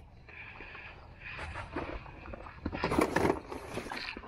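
Gear being handled in a car's cargo area: rustling and scraping of a canvas backpack against plastic bags and other gear, loudest about three seconds in.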